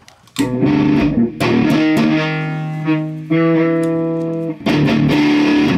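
Yamaha electric guitar played through an overdrive pedal fitted with a freshly installed precision audio op amp, heard from an unmiked guitar cab: a few held, distorted chords. The new op amp gives way more distortion and gain, which he puts down to its probably higher open-loop gain.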